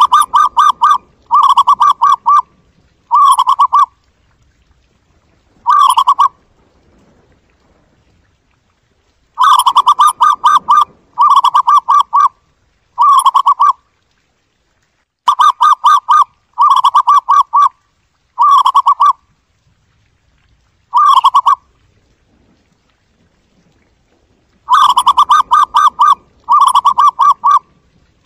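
Zebra dove calling: short phrases of rapid trilling coos, each under a second long, repeated in groups of two or three with pauses between.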